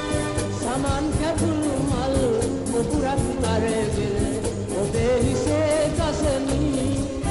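Old Sinhala popular song recording: a voice singing a melody that bends and slides in pitch, over instrumental accompaniment with a steady rhythmic beat.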